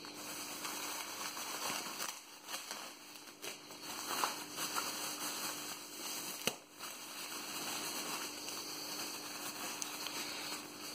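Plastic bubble wrap crinkling and rustling as it is unwrapped by hand, with scattered small crackles and one sharper click about six and a half seconds in.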